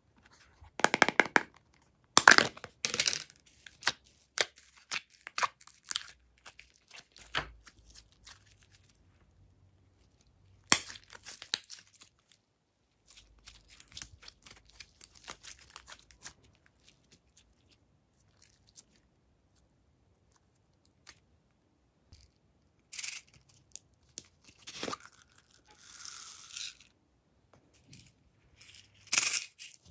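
Glossy slime being peeled from a plastic tray and stretched and folded by hand, making sticky crackling and tearing sounds in bursts, thickest in the first several seconds.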